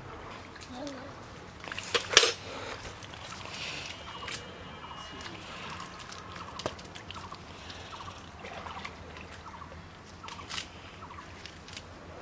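Water sloshing and dripping as a cast net is hauled out of a shallow muddy pond onto the bank, with scattered small splashes and clicks. A single sharp, loud thump about two seconds in.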